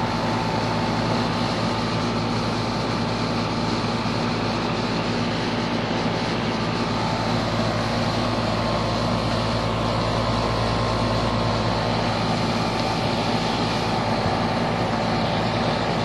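Air-conditioning condenser units running: the fan's steady rush of air over a constant low electrical hum.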